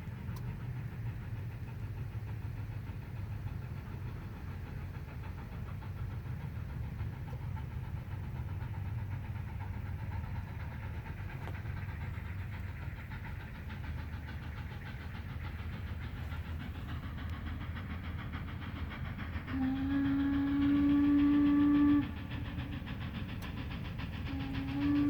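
Steam locomotive whistle blowing a long blast of about two and a half seconds, followed a couple of seconds later by a second blast that runs on past the end, over a steady low rumble.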